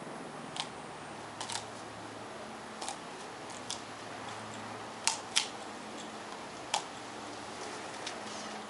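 Scattered sharp clicks and snaps of a young yellow Labrador retriever biting and chewing at a dry stick, about seven in all, with the loudest pair close together about five seconds in, over a steady faint hiss.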